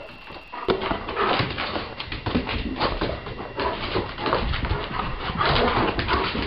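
Bernese mountain dog moving excitedly about on a hardwood floor, its paws thudding and claws clicking in quick, irregular strikes that start about a second in.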